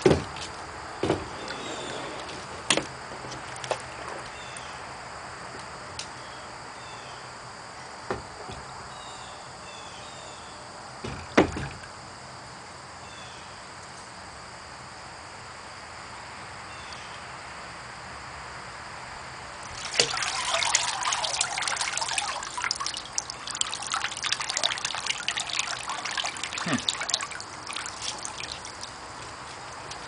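Water splashing and trickling for several seconds, starting about two-thirds of the way through, after a few sharp knocks earlier on.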